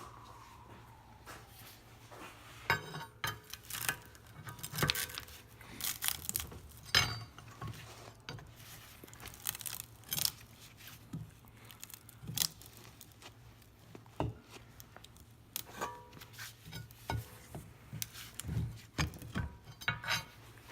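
Hand tools and metal parts of a semi-hermetic compressor clinking and knocking at irregular moments as it is taken apart.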